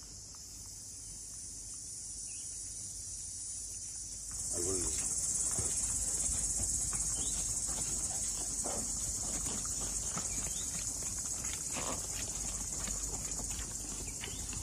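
A steady, high-pitched chorus of insects, getting louder about four seconds in.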